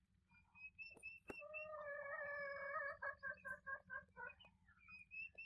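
Faint animal calls: a quick run of short high chirps, and about a second in, after a sharp click, a louder pitched call that is held, then breaks into rapid pulses before the chirping resumes.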